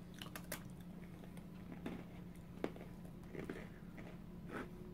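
Faint chewing of crunchy Japanese rice snacks, with a handful of short, sharp crunches spread through.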